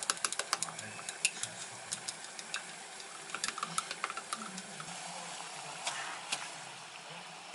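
Chopsticks clinking rapidly against a glass mug while an egg is beaten, a quick irregular run of sharp ticks. After about five seconds the ticking stops and gives way to the soft hiss of water boiling in a pot.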